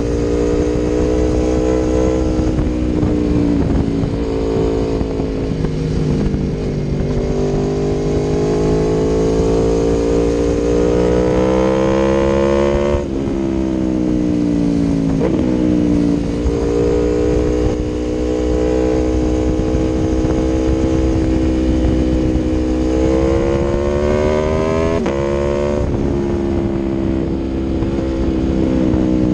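Aprilia Tuono V4 1100's V4 engine through an Akrapovic exhaust, pulling hard under acceleration. The pitch climbs steadily, then drops sharply at each upshift, several times.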